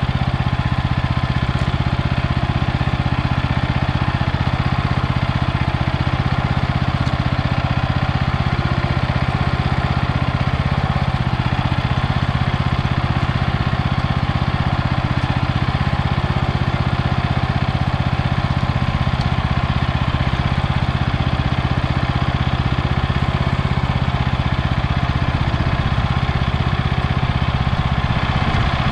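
Walk-behind tractor engine running steadily at an even speed under load while it pulls rotary weeding hoes through potato inter-rows.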